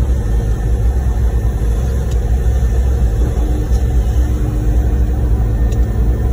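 Concrete pump truck's engine running steadily, a loud low rumble.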